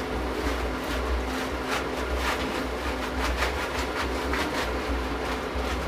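A large aluminium pot of rice water boiling on the stove, a steady low rumble, with irregular clinks and scrapes of a metal slotted spoon as it scoops half-cooked rice out.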